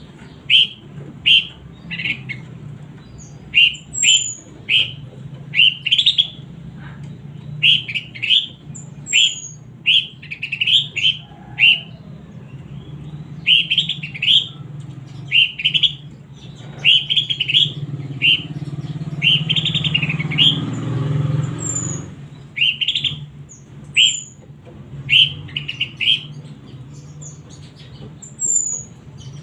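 Horsfield's babbler (pelanduk semak) calling over and over in short, loud, sharp notes, about one or two a second, with an occasional higher falling note. A low steady hum sits underneath, and a rushing noise swells for a few seconds past the middle.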